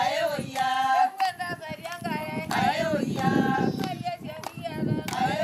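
Group of Maasai women singing together, a high wavering melody sung in short phrases with brief breaks between them.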